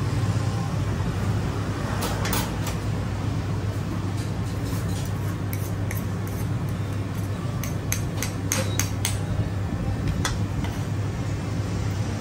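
Metal spoon clinking and scraping against a large ceramic platter as rice is scooped up: a scattering of sharp clinks, several bunched together about eight to nine seconds in, over a steady low background hum.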